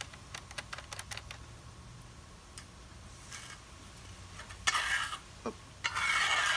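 A quick run of light metallic clicks in the first second and a half as a tiny laptop screw comes free and skitters away across the table, then a few stray ticks. Two short rough brushing noises follow near the end, from a hand searching the tabletop for the lost screw.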